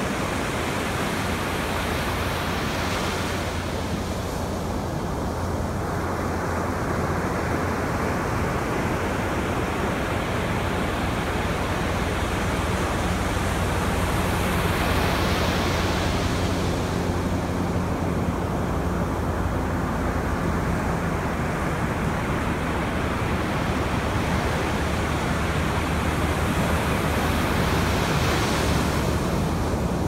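Ocean surf breaking and washing up a sandy beach: a steady rush of water that swells three times, about every twelve seconds, as waves break and wash in, over a constant low rumble.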